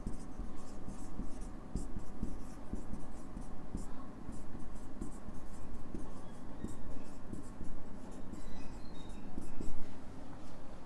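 Marker pen writing on a whiteboard: a quick, irregular run of short strokes, with a few faint squeaks a little before the end.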